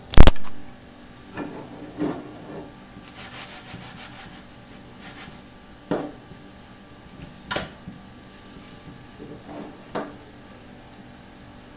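Frying pan knocking and scraping against the gas stove's grate as it is lifted and turned over to flip a potato-and-egg cake: one sharp clack just after the start, then scattered lighter knocks and scrapes.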